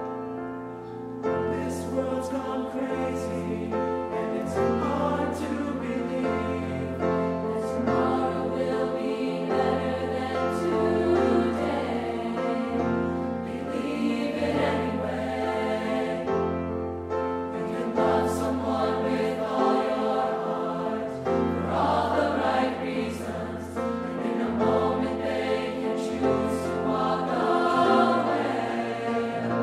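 A high school choir singing slow, held chords, with a low bass part coming in about a second in.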